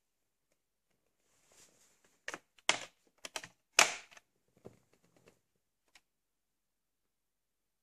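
Hard plastic clicks and knocks from a VHS clamshell case and cassette being handled and set down on a table, an uneven string of sharp taps with two louder knocks about three and four seconds in.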